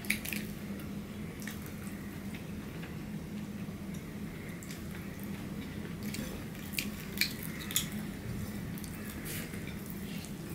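Close eating sounds of people eating rice and curry with their hands: soft wet chewing and mouth smacks, with a few sharp clicks, one right at the start and several about two-thirds of the way through, over a steady low hum.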